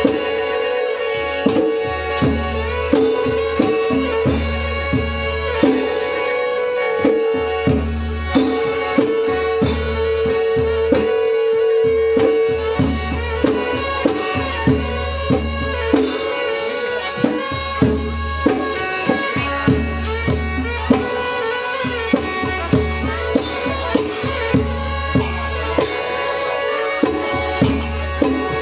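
Live Northern Khmer folk ensemble: hand-played barrel drums keep a steady beat of about two strokes a second under a long held melody line, with light high ticks marking the beat.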